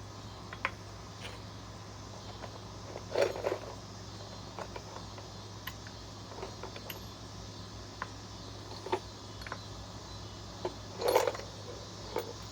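Loose metal hardware being handled and sorted: scattered clinks and clicks, with two louder clatters about three seconds in and near the end.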